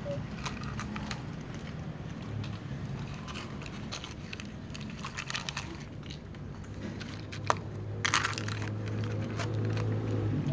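A cat crunching dry kibble from a plastic bowl: irregular crisp crunches and clicks, with a louder burst of crunching about eight seconds in.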